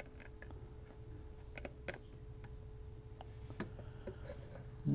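Faint scattered clicks and light scrapes of a small hand tool being worked under the edge of a paper speaker cone against its metal frame, over a faint steady hum.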